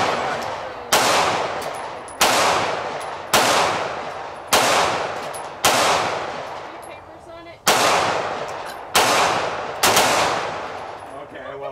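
Eight gunshots, roughly one a second, each followed by a long echo that dies away, with a slightly longer pause before the last three.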